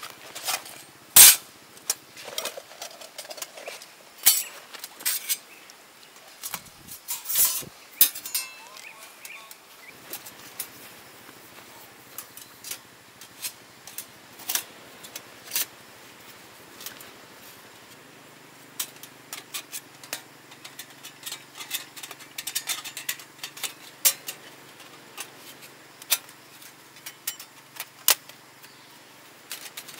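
Metal panels of a folding Fire Maple wood-burning camp stove clinking and clacking as they are handled, unfolded and slotted together, with a sharp clack about a second in.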